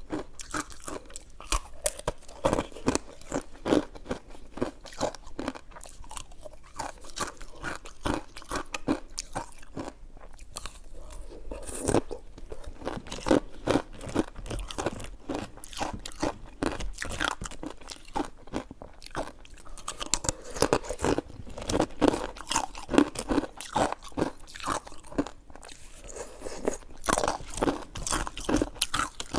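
Close-miked chewing of coconut sticky rice cake, a continuous, uneven run of short mouth clicks and crackles with loud bites scattered through.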